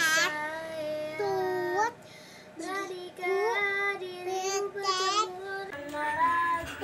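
A small child singing in a high voice: long held notes that swoop up and down, with a short break about two seconds in.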